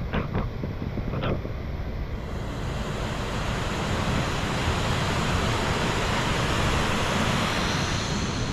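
Rushing water after heavy rain, a steady dense rush that grows louder from about two seconds in, with a few short knocks in the first second and a half.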